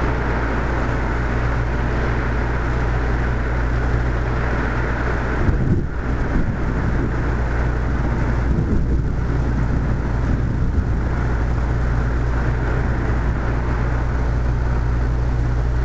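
Heavy thunderstorm rain pouring down steadily, with a low continuous rumble underneath.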